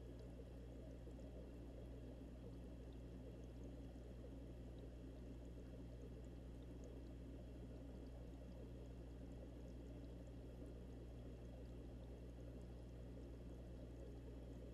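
Aquarium air stones bubbling over a steady low hum, heard from underwater inside the tank, so everything sounds muffled, with faint tiny ticks from the bubbles.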